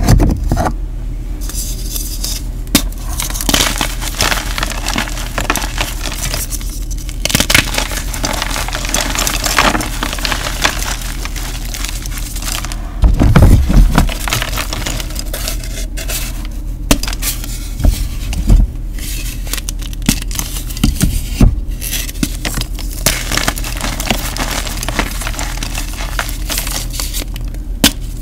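Gym chalk blocks and dyed chalk pieces being crushed and crumbled by hand: a continuous run of crunching and crumbling, full of sharp cracks. About halfway through comes a heavier, deeper crunch.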